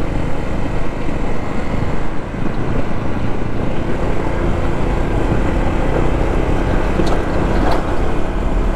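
Steady wind rush on the microphone over the running engine of a Honda ADV160 scooter, cruising at about 70–80 km/h.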